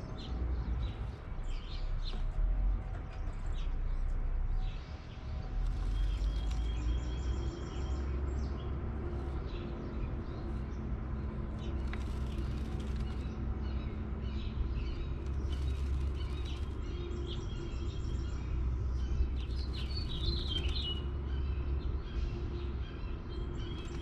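Small birds chirping: short, scattered chirps and brief trills throughout, over a steady low rumble.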